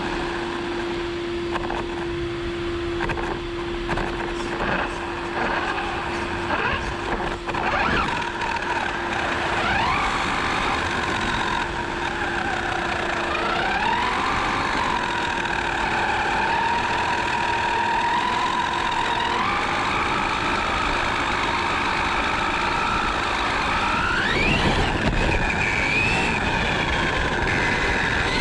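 1/8-scale electric RC truggy driving over a wet road, heard from a camera on board: its motor whines, rising and falling in pitch with the throttle, over tyre and road noise. A few knocks and rattles come in the first several seconds, and there is a quick rising whine about three quarters of the way in.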